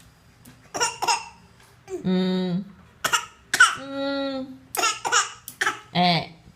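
A small child's voice with short cough-like bursts and laughter: the child fake-coughing in imitation of its mother's cough and laughing about it.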